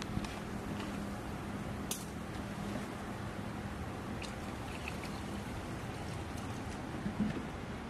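Liquid poured from a plastic jug into a plastic tub of water holding metal hardware, splashing and trickling, over a steady low hum. A couple of light clicks, the loudest near the end.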